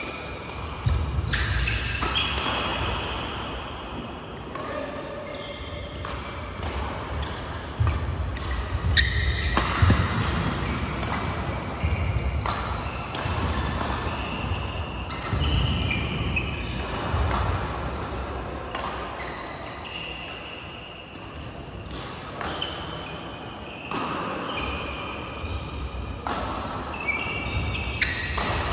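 Badminton play across several courts of a large hall: rackets striking shuttlecocks in sharp knocks, and court shoes squeaking in short high chirps on the court mats, echoing around the hall.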